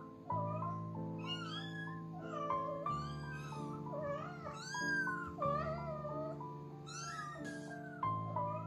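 Young kittens mewing again and again, short high-pitched calls that rise and fall, one after another, over background music.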